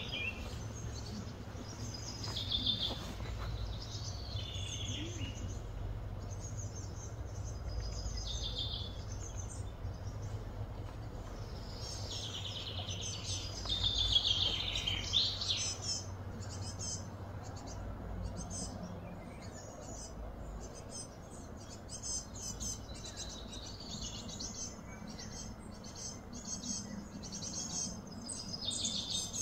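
Wild birds chirping and singing, with a longer, louder run of song about halfway through, over a steady low hum.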